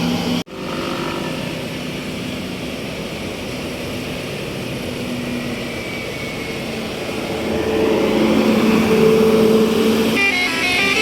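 Road noise of a passing bus, broken by a brief dropout just after the start. About two-thirds of the way in, a steady bus horn tone swells. Near the end a telolet basuri multi-tone horn starts playing a melody in stepped notes.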